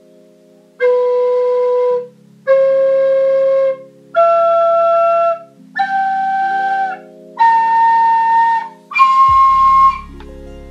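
Low-fired ceramic wind instrument playing a rising scale: six notes, each held about a second with short breaths between, climbing step by step.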